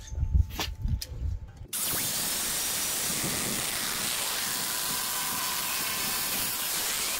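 Angle grinder with a thin cutting wheel cutting through a steel Ford Ranger frame rail: a steady, harsh hiss of the wheel biting into the metal. It starts abruptly about two seconds in, after a low rumble and a few knocks.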